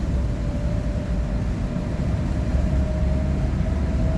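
A moving road vehicle's steady low rumble of engine and road noise, with a thin whine that rises slowly in pitch.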